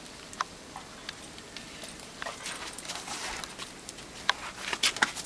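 Footsteps crunching in packed snow, with scattered light clicks that come more often near the end.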